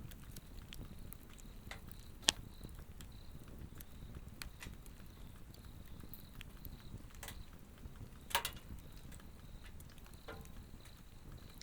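Swedish torch log fire crackling, with scattered small snaps and two sharper pops, one about two seconds in and one about eight seconds in. Insects chirp throughout in a faint, high, pulsing tone.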